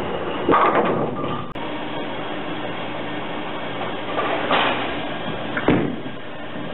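Motiv Forge Fire bowling ball crashing into the pins about half a second in, over the steady rumble of a bowling alley. A sharp thud near the end, as the next ball lands on the lane.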